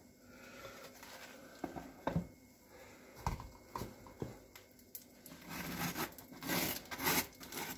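A table knife scraping butter across slices of dry toast: a few light knocks and scrapes at first, then a run of repeated rasping strokes that gets louder from about six seconds in.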